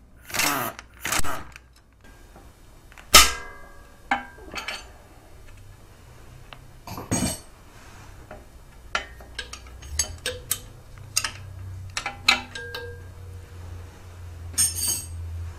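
Wrench turning the oil feed line's retaining bolt out of the engine's cylinder head: scattered metal clicks and clinks, a few with a short ring, and a few brief scrapes as the tool is repositioned.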